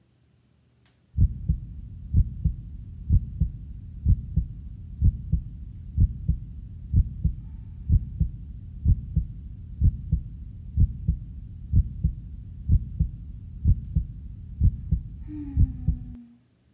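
Deep, regular thumping pulse, about two thumps a second, starting abruptly about a second in and cutting off just before the end. A brief low falling tone sounds near the end.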